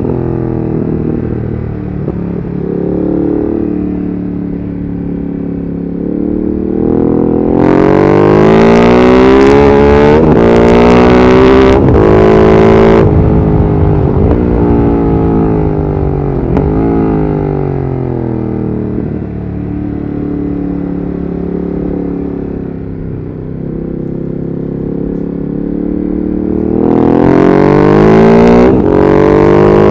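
Ducati Monster 1200S's 1198 cc Testastretta L-twin heard from the rider's seat, pulling hard through the gears about a quarter of the way in, its pitch climbing and dropping back at each upshift. It then eases off and runs at part throttle, and opens up and climbs again near the end.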